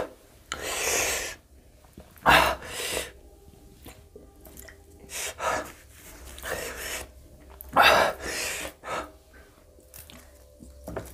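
A man breathing hard in loud, sharp gasps and blows, five or six bursts of about a second each, with sniffing between them: his reaction to the burn of very hot green chillies.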